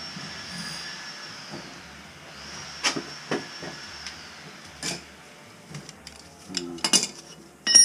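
Water hissing into a freshly installed toilet through its supply line and fill valve, a steady high hiss that dips and rises again about two seconds in and fades out around four seconds. Sharp clacks and knocks of tools and hands on the fixture follow, the loudest near the end.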